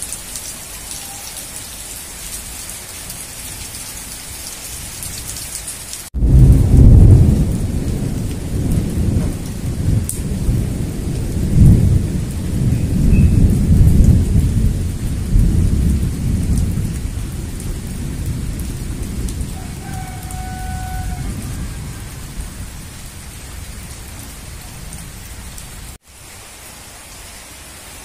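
Heavy rain hissing steadily. About six seconds in, a loud peal of thunder breaks in suddenly and rumbles on in waves, dying away slowly over some fifteen seconds. Near the end it cuts abruptly back to steady rain.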